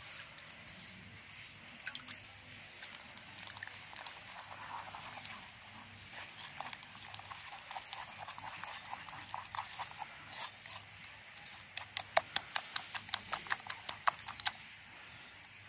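Bare hand mixing thick, wet batter in a clay bowl: soft squelching and light taps, then near the end a quick run of sharp slaps, about five a second, as the batter is beaten against the bowl.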